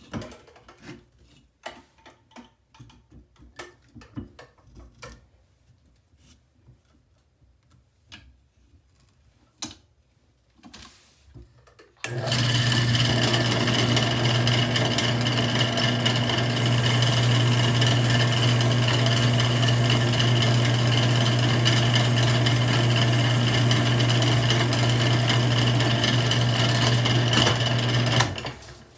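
A few light clicks and knocks of handling, then about twelve seconds in a drill press starts and runs steadily for about sixteen seconds before stopping near the end. It is a 1/4 inch bit drilling the head off a stripped scope base screw in a shotgun receiver.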